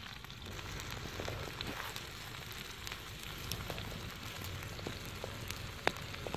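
Small open wood fire crackling under a flat cooking stone: a steady hiss with scattered sharp pops, the loudest pop near the end.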